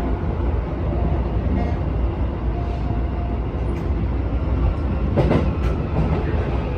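Keisei electric train running, heard from inside the front car: a steady low rumble of wheels on rail with a brief clatter about five seconds in.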